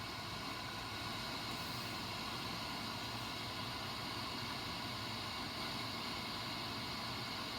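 Steady hiss-like static with a few faint constant tones running through it, unchanging throughout.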